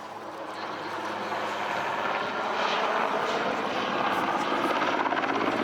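Super Puma helicopter's rotor and turbines running, growing steadily louder as it comes closer, with the rapid beat of the rotor blades becoming clearer in the second half.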